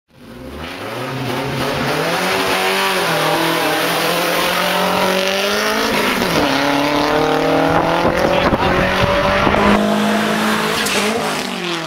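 Race-prepared 1995 Nissan 240SX engine at full throttle, its pitch climbing through each gear and dropping back at the upshifts as the car accelerates hard. The pitch falls away near the end as it comes off the throttle.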